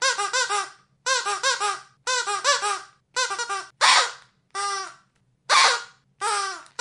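Rubber squeaky dog-toy ball squeezed over and over. It gives four quick runs of about four squeaks each, about a second apart, then single longer squeaks, some of them breathier and wheezier.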